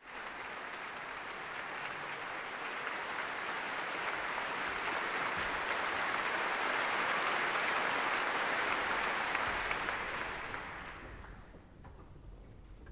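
Audience applauding in a concert hall, building slightly and then dying away near the end.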